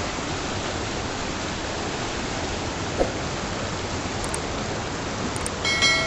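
Rapids of a rocky stream rushing over and between boulders, a steady, even hiss of water. A short chime rings out near the end.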